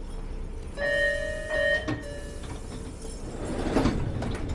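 Orange Line subway car's door chime, steady tones lasting about a second, then the car's sliding doors closing with a rattling clatter near the end, not smoothly.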